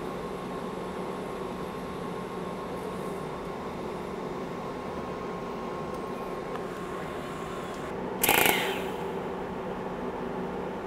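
DC TIG welding on an Everlast 250EX: a steady low hum and hiss from the arc and machine. A little past eight seconds in comes one brief, loud crackling burst, fitting the arc being re-struck with the high-frequency start.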